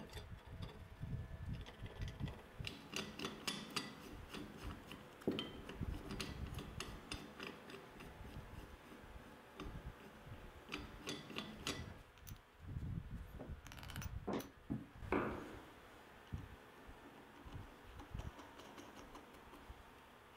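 Laser-cut steel parts and bolts of a 2x82-inch belt grinder being handled and fitted together by hand: scattered metal clicks, clinks and rattles, with gloved hands rubbing on the parts.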